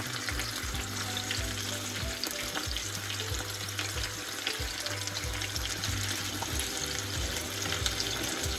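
Steady crackling sizzle of food cooking in a pot, with many small pops, over a low steady hum.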